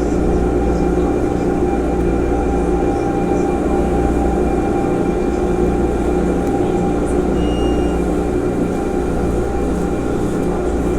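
CPTM series 2000 electric train's VVVF inverter traction motors humming steadily, a stack of fixed tones over a low fluttering drone, with no clear rise or fall in pitch.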